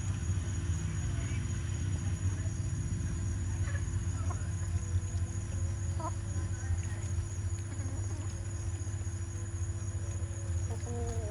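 Steady high insect chirring, like crickets, over a constant low hum. A few short, faint chirps come through, about four seconds in, again about six seconds in, and near the end.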